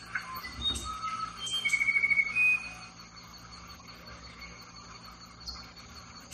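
A songbird singing one short phrase of clear whistled notes with a rapid trill in the middle, about one and a half to two and a half seconds in; after it, only faint chirps over a steady hum of insects.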